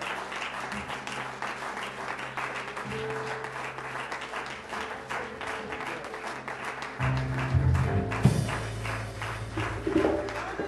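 Congregation clapping after a sermon ends, with instrumental church music of held low chords underneath that grows louder about seven seconds in.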